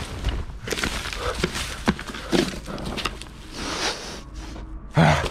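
A person moving on a forest floor of dry leaves and twigs: irregular rustling and small snaps, with a couple of short strained grunts, one about halfway through and a louder one near the end.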